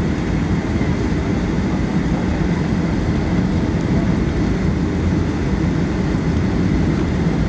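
Steady, loud cabin noise of a jet airliner: engine drone and rushing air heard from inside the passenger cabin, with no change in level.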